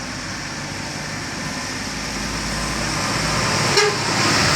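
A road vehicle's engine approaching and growing steadily louder, with a brief click about four seconds in.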